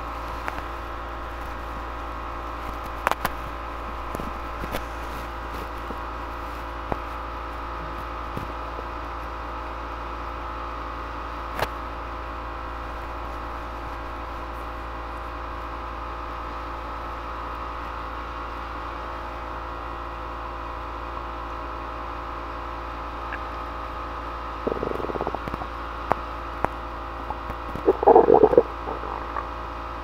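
Steady electrical hum and hiss of background recording noise, with scattered faint clicks. Near the end there are two short, louder bursts of noise, the second the loudest.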